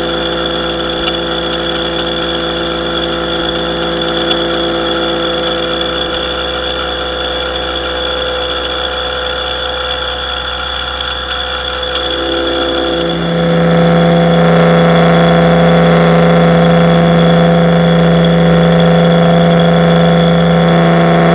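Pressure washer running steadily as it sprays, a constant machine hum with spray noise. About thirteen seconds in its note changes and it gets louder.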